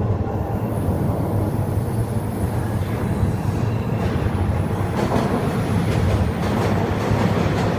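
Subway train running through a tunnel and into a station, heard from on board: a steady low rumble of wheels on rail, with faint clicks over rail joints from about five seconds in.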